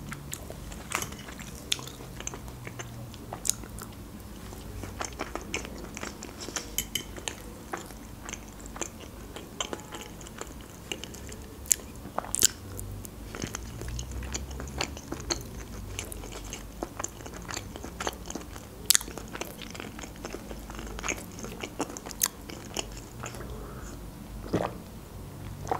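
Close-miked eating: chewing of hearts in tomato sauce with mashed potato, heard as many short wet mouth clicks and smacks at irregular intervals.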